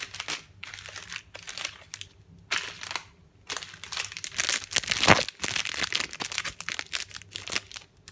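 Plastic packaging of chocolate crêpes, the outer bag and the individually wrapped crêpes, crinkling as it is handled, in irregular bursts that are loudest about five seconds in and stop just before the end.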